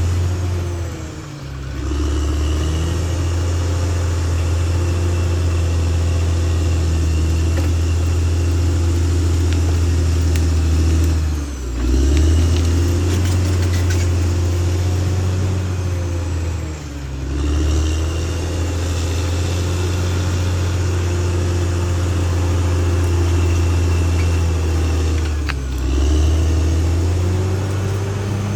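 Caterpillar D6R XL bulldozer's diesel engine running steadily under load. Four times the engine note dips briefly and then climbs back up.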